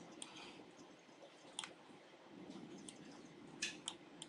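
Faint, scattered clicks from a computer mouse and keyboard: a few single clicks, with two louder ones close together near the end.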